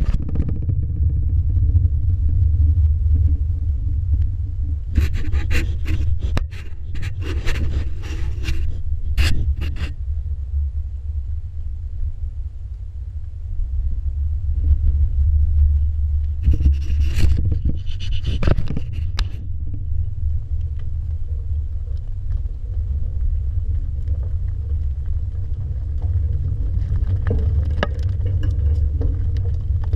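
A steady low rumble on the camera's microphone, broken by two spells of scraping and knocking, about five seconds in and again past the middle, as bison nose and bump the action camera on the ground.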